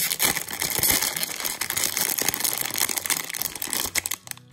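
Shiny plastic Hot Wheels Mystery Models blind-bag packet being torn open and crinkled by hand, a dense crackling that stops about four seconds in.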